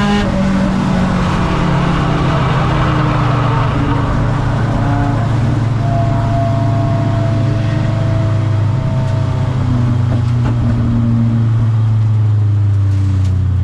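Race car's engine heard from inside the cockpit, running at low, fairly steady revs that drift slowly lower, with steady road noise underneath.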